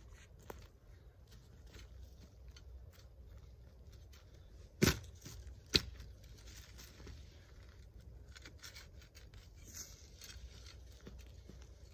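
4Patriots Ready Shovel, a small high-carbon-steel shovel on a long stick handle, digging into leaf-covered forest soil. Its blade strikes the ground sharply twice, about a second apart near the middle, with scraping and crunching of dirt and dry leaves around the strikes.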